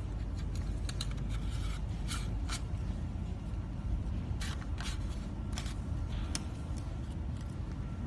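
White plastic LED lamp housing and its parts being handled and pressed together by hand: a scatter of short clicks and scrapes over a steady low background rumble.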